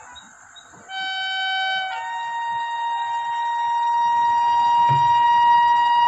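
WAP-7 electric locomotive's horn sounding shrill: a short lower note about a second in, then a long higher note held for about four seconds, growing steadily louder as the train approaches.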